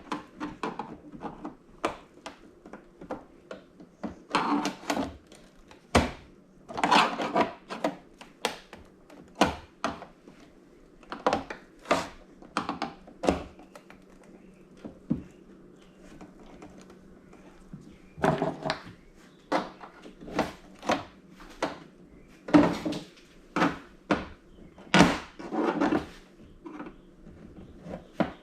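Plastic TV housing being pried and broken away from a screw with small hand tools: an irregular run of clicks, snaps and knocks, with a few longer scraping, crunching stretches.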